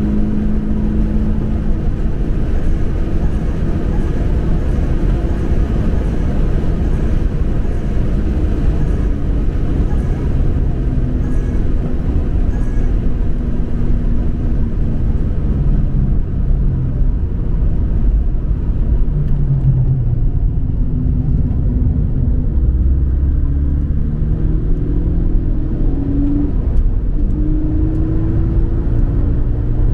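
Toyota 86's flat-four boxer engine running under way, heard from inside the cabin, its pitch repeatedly rising and falling with changes in engine speed over a steady rumble of road noise.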